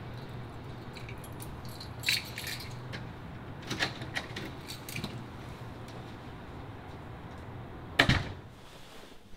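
Keys jangling and clinking in a door lock in a few short bursts, then a door shutting with a sharp knock about eight seconds in. A steady low hum runs underneath.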